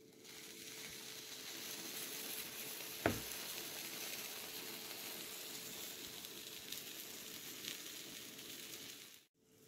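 Toast sandwiches sizzling between the hot plates of a Blokker electric contact grill as its lid presses down on them, a steady sizzle that builds over the first second. A single sharp knock about three seconds in.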